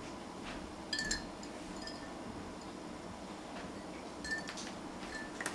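Hard-boiled eggs clinking against drinking glasses of water as they are lowered in, each knock leaving a brief glassy ring: once about a second in and twice more near the end.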